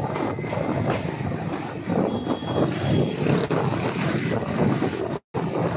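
Moving motorcycle: engine running with wind noise rushing over the phone's microphone. The sound cuts out for an instant about five seconds in.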